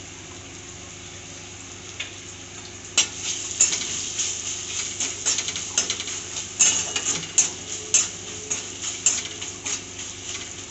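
Spice masala frying in mustard oil in a kadhai with a low sizzle. About three seconds in, a metal spatula starts stirring it, scraping and clinking irregularly against the pan as the masala is roasted.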